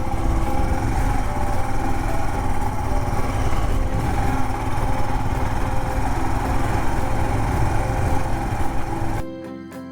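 Royal Enfield Himalayan's single-cylinder engine running with a steady, rough low chug. It cuts in suddenly and stops abruptly near the end.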